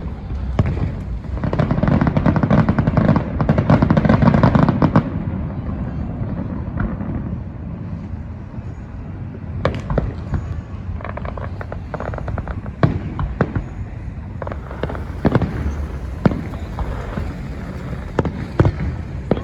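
Fireworks going off: a dense run of rapid crackling pops from about two to five seconds in, then scattered single sharp bangs a second or more apart.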